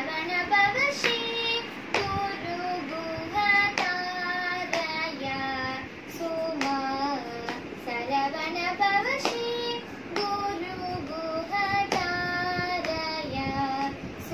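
A girl singing a Carnatic song unaccompanied, her voice sliding and bending between notes. Sharp hand claps keep the beat about once a second.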